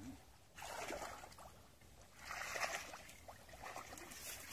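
Shallow pond water splashing and sloshing in two short bursts, about half a second and two seconds in.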